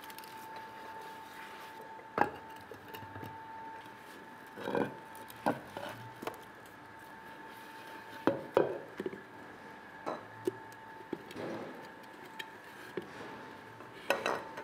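Clay pots being washed and handled: scattered knocks and clinks as pots are set down and bump against each other and the tiled floor, between soft scrubbing, over a faint steady high tone.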